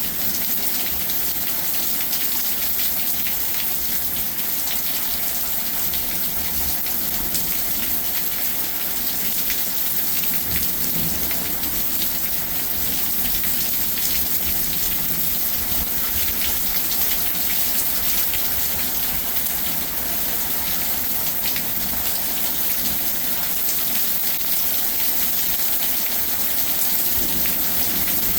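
Steady heavy rain falling and pattering on surfaces, with no letup.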